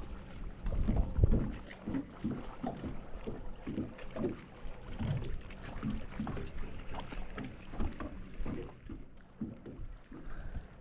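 Irregular low rumbling and knocking aboard a small boat on the water, with wind buffeting the microphone.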